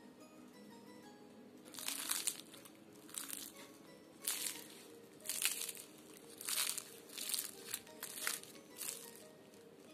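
Crisp, flaky crust of a baked layered samsa crackling and crunching as hands squeeze and break it, in about eight short bursts starting about two seconds in. Soft background music plays underneath.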